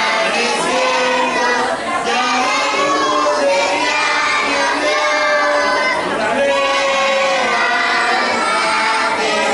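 A group of children singing a birthday song together, several voices holding the notes of the tune.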